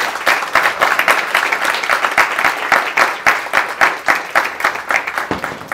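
Audience applauding at the end of a talk, a dense, even run of clapping.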